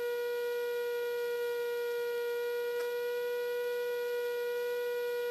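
Steady electrical whine on a light aircraft's intercom audio: one unchanging tone with faint overtones.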